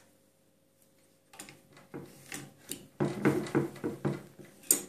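Clicks, scrapes and knocks of a metal caliper being handled and set against the parts of a homemade mini lathe's cross slide, starting about a second in and busier in the second half, with a sharp click near the end.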